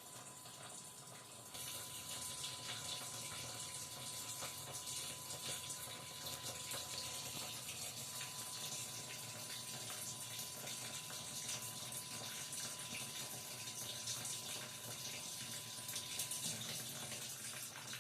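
Water rushing steadily into the drum of an LG 6.5 kg fully automatic washing machine as it fills, getting louder about a second and a half in.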